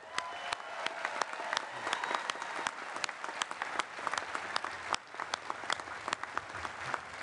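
A large crowd applauding steadily, many hands clapping at once, in congratulation of the new graduates.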